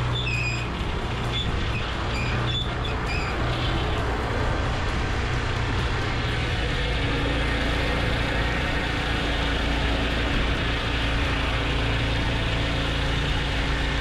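Mahoe Minimax portable sawmill running, its engine driving the saw blade through a white oak log in a steady cut. A few short high squeaks sound in the first few seconds.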